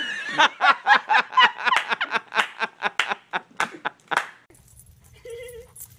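A person laughing hard in a rapid string of short bursts, about three or four a second, breaking off about four seconds in. After that only a faint low hum and a brief, faint whine.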